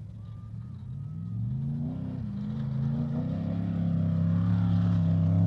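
Off-road race vehicle's engine approaching at speed, growing steadily louder as it nears, with a brief drop in pitch about two seconds in like a gear change.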